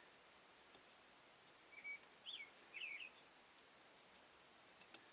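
Near silence with three short, faint bird chirps about two seconds in, each a quick high note bending up and down, and a light click near the end.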